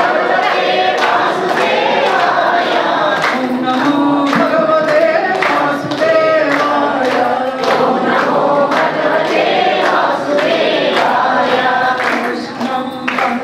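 A group of women's and men's voices singing a Krishna devotional song together, one woman leading through a microphone, with steady hand clapping on the beat.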